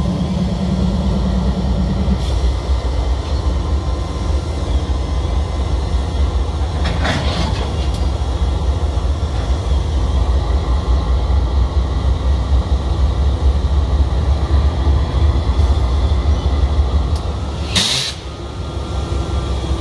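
BNSF diesel-electric helper locomotive running with a steady low rumble as it creeps up to couple onto the rear of a container train. A short sharp noise comes near the end, after which the rumble drops away.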